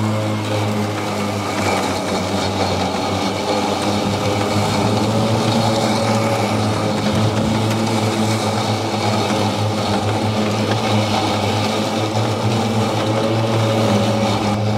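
Electric blade and drive motors of an EGO 52-inch triple-blade battery riding mower running steadily under load while cutting tall, wet grass, a steady motor hum with the swish of grass going through the deck.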